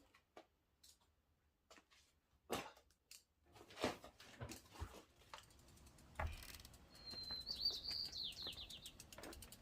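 Scattered clicks and knocks from handling the bike and tools, then a bird's high chirping trill about two-thirds of the way in, with rapid faint ticking near the end.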